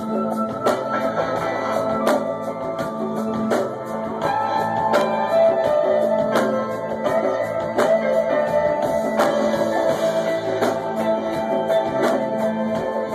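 Live rock band playing: electric bass, guitar and keyboard over a steady drum-kit beat.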